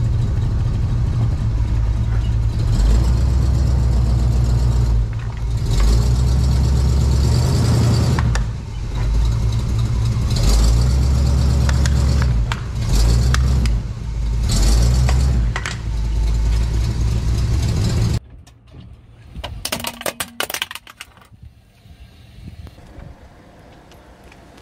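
Large off-road truck's engine running loudly with a deep low rumble, rising at times, while its tyre rolls over a plastic toy car and the plastic cracks. About 18 seconds in the sound cuts off suddenly, leaving only a few faint clicks and scrapes.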